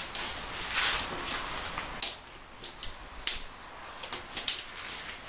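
Tent body hooks being clipped onto the poles of an MSR Stormking dome tent: a few sharp plastic clicks amid rustling of the tent fabric.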